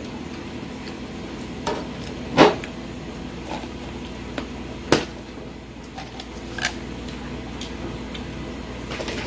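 Handling noises: a few short sharp knocks and clicks as things are picked up and set down on a table, the loudest about two and a half seconds in and another about five seconds in, over a steady low room hum.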